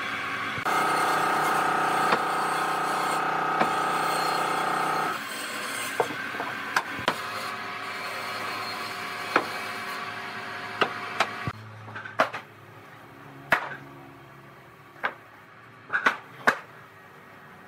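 A woodworking machine runs steadily for about four seconds and then stops. After it, wooden pieces are knocked and set down in scattered, irregular taps and clacks.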